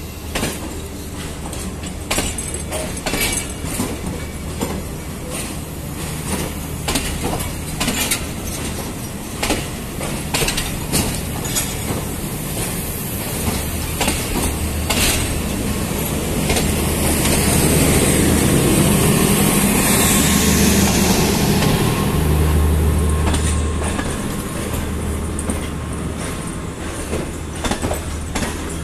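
Passenger train coaches running past, their wheels clicking over rail joints in a fast, irregular rattle over a steady low hum. The noise swells to its loudest about two-thirds of the way through, with a high hiss on top, then eases back.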